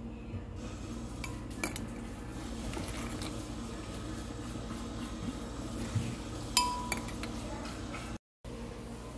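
Metal spoon clinking against glass while sugar is scooped out and added, a few separate clinks, one of them ringing briefly, over a steady low hum. The sound drops out for a moment near the end.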